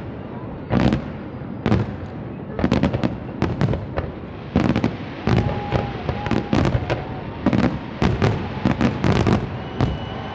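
Fireworks display: many loud bangs of bursting shells, going off in irregular clusters, some several in quick succession.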